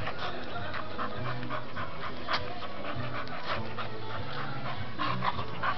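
Bull terrier panting hard as it bites and gnaws at a palm trunk, with many short clicks and scrapes of its teeth on the bark.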